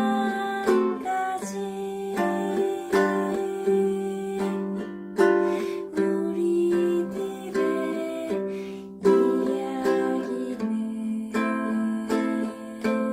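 Ukulele playing chords in a steady rhythm, an instrumental passage between sung verses.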